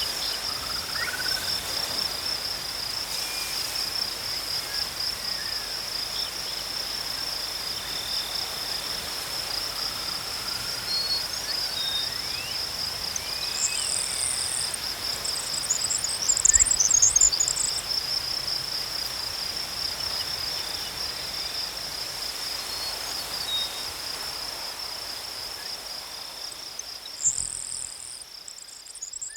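Insects trilling steadily in a fast, even pulse, with a second fainter trill under it. Short high bird chirps come about halfway through and again near the end. A low thump at about the middle is the loudest moment, and the sound fades out at the very end.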